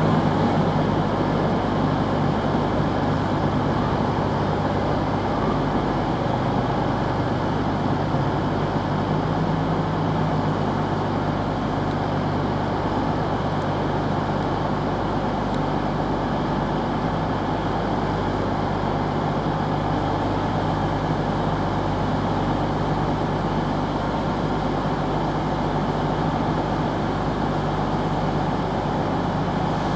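Underfloor diesel engines of Class 222 Meridian diesel multiple units running with a steady drone, easing slightly over the first few seconds as the departing unit draws away.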